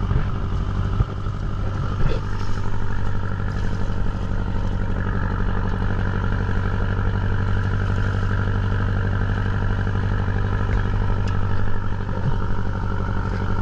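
An engine on a diving boat running at a steady speed: a constant low drone, with a couple of faint knocks a second or two in.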